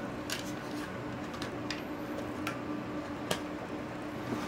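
Toys being handled: about half a dozen light, sharp clicks and taps at irregular intervals, over a faint steady hum.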